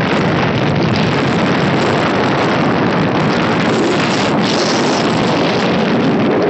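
Steady rush of wind buffeting the microphone on a Bajaj Pulsar NS 125 riding at road speed, with the motorcycle's engine and tyre noise blended underneath.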